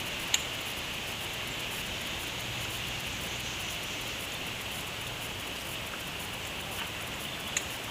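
Steady hiss of river water running through shallows, with two short sharp clicks: one just after the start and one near the end.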